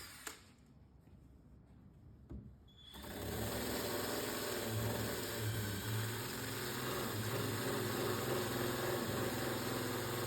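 A few light handling clicks, then about three seconds in an electric drill fitted with an abrasive attachment starts up and runs steadily, sanding old glue off a surface.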